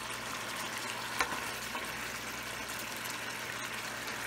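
Chicken curry in a thick masala gravy sizzling and bubbling in a pan on the stove: a steady crackling hiss, with a single sharp click about a second in.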